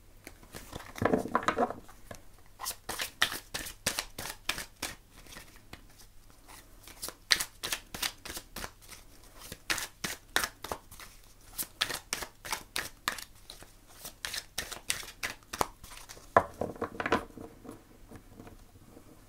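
A deck of oracle cards shuffled by hand: quick runs of sharp card flicks and taps, several a second, with a brief louder rustle near the start and again near the end.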